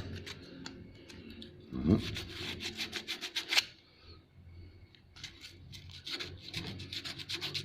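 Sandpaper rubbed back and forth in rapid strokes on a small metal part of a Singer sewing machine, in two spells with a short pause in the middle, smoothing a burred hole that was cutting the thread.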